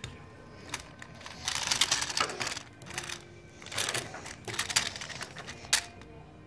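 Plastic toys clattering and rattling against a wooden tabletop as they are handled, in several short bursts of clicks and scrapes, with a sharp knock near the end.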